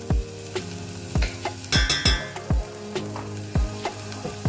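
Background music with a beat and held notes, over a light sizzle of a melted curry cube and spices frying in oil in a saucepan.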